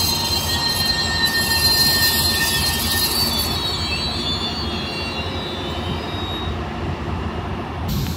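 GO Transit commuter train rolling slowly to a stop, its wheels giving high, steady squeals that fade out a few seconds in. Under them runs a steady low rumble and whine from the diesel locomotive.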